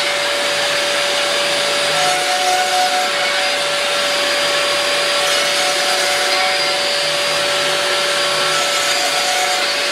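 DeWalt router on an X-Carve CNC machine running steadily at speed with a constant whine, fitted with a 3/8-inch cutter to bore clearance holes in a plywood board.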